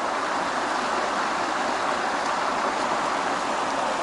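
Steady rush of a creek's running water, an even hiss with no breaks.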